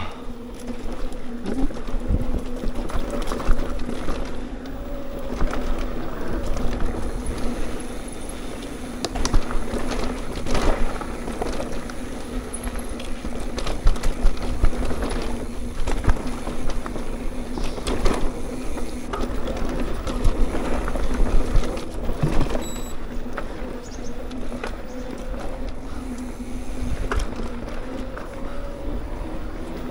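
Mountain bike ridden along a dirt trail: tyre rumble and wind on the mic, with scattered clicks and knocks from bumps and the bike's parts, over a steady hum.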